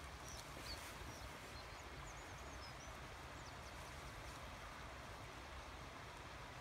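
Faint open-country ambience: a steady low hiss, with a few thin, high bird chirps during the first three seconds.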